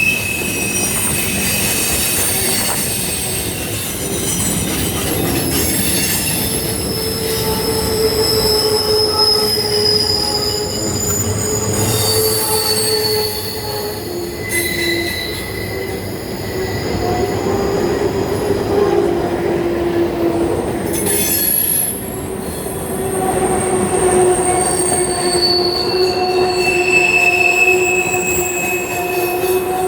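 Train's steel wheels squealing as its cars roll along a connection track: several high, piercing tones come and go and overlap, over a steady rumble of the cars.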